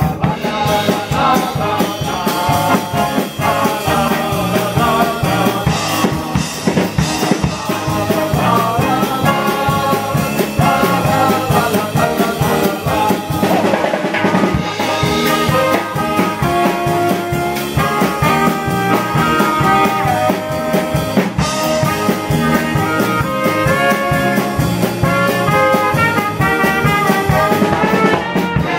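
Live polka band playing an instrumental passage: drum kit keeping the beat under electric bass, with a trumpet playing the melody.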